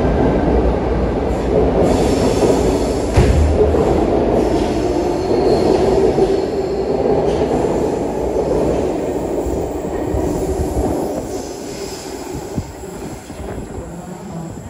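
Sydney Trains electric suburban train departing an underground platform, with steady running noise over the rails, some high wheel squeal and a clunk about three seconds in. The sound fades over the last few seconds as the train runs off into the tunnel.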